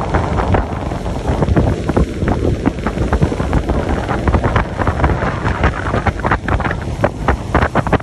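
Wind buffeting the microphone in irregular gusts on a moving boat, over a steady low rumble of the boat and water.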